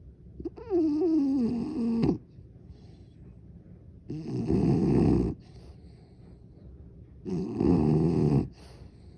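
Bulldog snoring in deep sleep: three loud snores about three seconds apart. The first has a wavering whistle that falls in pitch.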